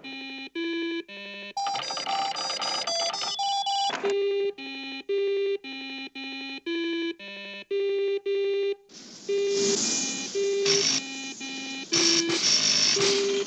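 A cartoon robot's electronic bleeping: a string of short beeps jumping between pitches, about three a second. Stretches of buzzing, hissy electronic noise come about two seconds in and again from about nine seconds on.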